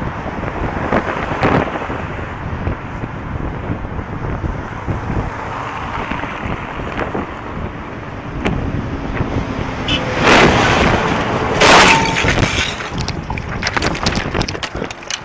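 Wind rushing over a riding cyclist's camera microphone, then about ten seconds in a bicycle crash: two loud impacts about a second and a half apart, followed by clattering knocks as the bikes and riders go down.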